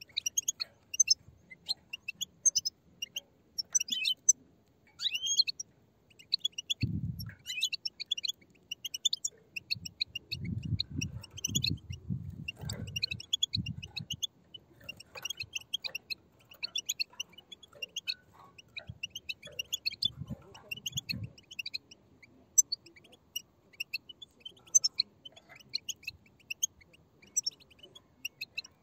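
A group of European goldfinch chicks giving rapid, overlapping high twittering begging calls without a break. A few low muffled bumps come in among them, once about a quarter of the way in, as a cluster through the middle, and again later.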